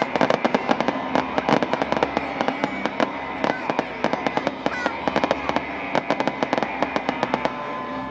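Fireworks display crackling: a dense, continuous run of sharp pops and crackles from bursting star shells, many per second.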